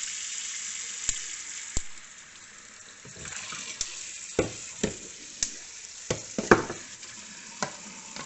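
Kitchen tap running steadily into a sink, with a series of sharp knocks and splashes as a lump of ice and a plastic tub are handled under the stream, the loudest knock about six and a half seconds in.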